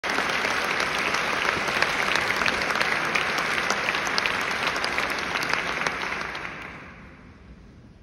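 Concert hall audience applauding, a dense patter of many hands clapping that dies away about six to seven seconds in.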